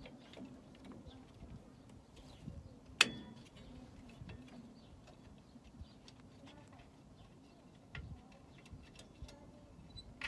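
Scattered light metallic clicks and taps of tools and drum-brake parts being handled, with one sharp metal clink about three seconds in that rings briefly.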